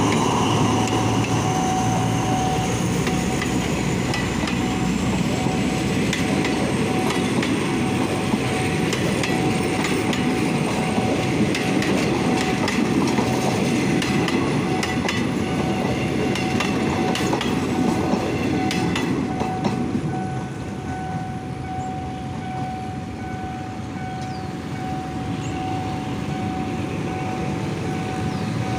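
Diesel locomotive No. 4222 and its passenger coaches passing at close range: a heavy engine and wheel rumble with wheels clacking over rail joints. The sound falls away about twenty seconds in as the last coaches go by. A level-crossing warning bell rings steadily throughout.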